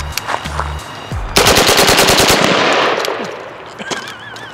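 Wolverine MTW HPA airsoft replica of the Genesis Arms Gen-12 shotgun, with its HAVOC engine, firing a rapid full-auto burst of shots about a second and a half in, lasting about a second and trailing off into a fading rush. Each shot throws a spread of about eight BBs.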